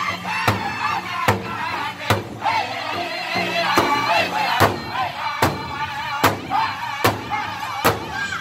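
Powwow drum group singing in high-pitched unison over a large hide drum struck together by several drumsticks, in a steady beat a little faster than one stroke a second.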